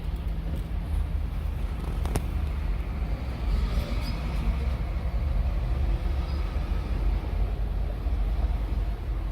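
Steady low rumble of motor-vehicle noise, with a single sharp click about two seconds in.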